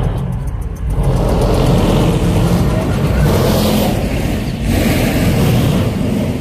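Cars on the road: engines running with some revving, and a swell of road noise about three seconds in.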